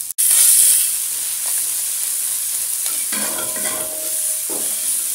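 Long beans, mustard greens and egg sizzling in hot oil in a wok while a wooden spatula stirs them. The sizzle cuts in abruptly just after the start, loudest for the first second, then carries on steadily.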